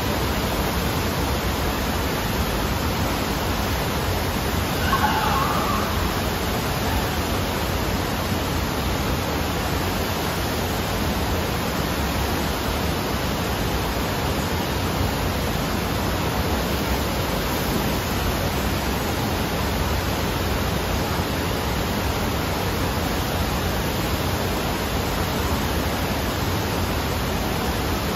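Steady rush of water pumped up the sloping sheet wave of an indoor surf machine, a constant even roar of spray.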